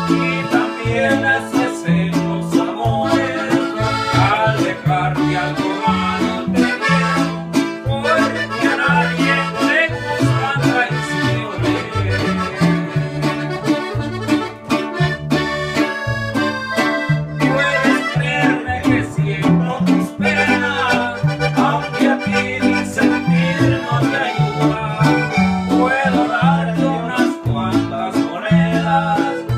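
Live accordion and large acoustic bass guitar playing a lively instrumental tune: the piano accordion carries the melody over a steady run of plucked bass notes.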